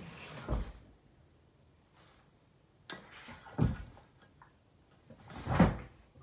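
Three dull thumps about a second and a half to two seconds apart, each louder than the one before, as a person bumps against a table and chair while slumping down out of sight.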